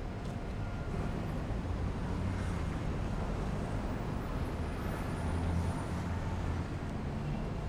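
Street traffic: a steady low rumble of passing vehicles, growing a little louder around the middle.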